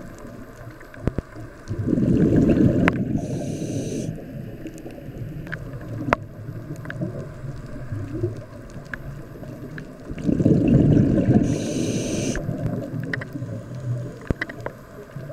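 Scuba regulator breathing heard underwater: a burst of exhaled bubbles, then a short hiss of inhaled air. This happens twice, about eight seconds apart, with scattered small clicks between.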